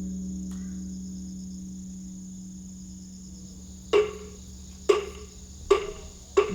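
Large Korean Buddhist temple bell (beomjong) humming and slowly fading after a strike, a deep steady tone with a few higher overtones. About four seconds in, sharp knocks start and come faster and faster. Right at the end the bell's hum swells again with a fresh strike.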